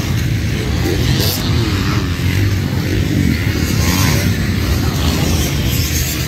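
Several motocross dirt bikes racing on a dirt track, their engines revving up and down as the riders work through the course.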